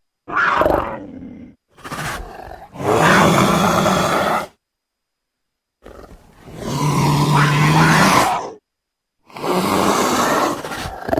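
A series of wild cat roars and growls, the longest about two seconds, with dead silence cut between them: a fossa sound-effect track assembled from fossa, leopard and cougar recordings.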